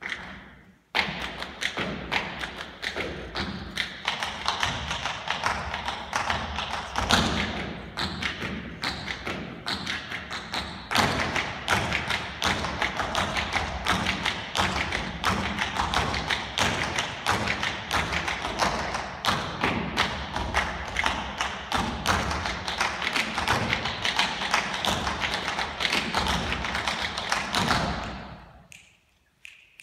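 Tap shoes beating out fast, dense rhythms with no accompaniment, after a short pause at the start; the taps die away about a second before the end.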